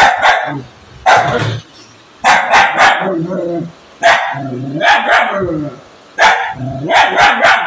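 Tan short-haired dog barking in quick clusters of two or three sharp barks, about a dozen in all, with lower-pitched sounds between the clusters.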